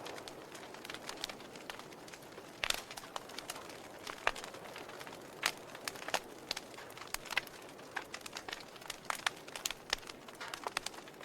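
Wood fire burning in a fireplace, crackling with irregular sharp pops and snaps over a soft steady hiss.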